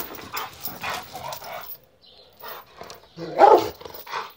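Rottweiler barking in short bursts, the loudest bark about three and a half seconds in.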